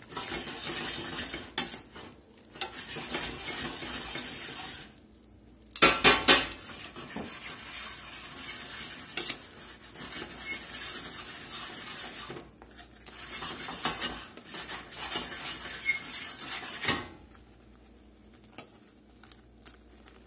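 Metal tongs clanking and scraping against a skillet as whole shrimp are turned in a simmering butter sauce, over a steady hiss from the sauce. There is a loud cluster of clanks about six seconds in, and it grows much quieter for the last few seconds.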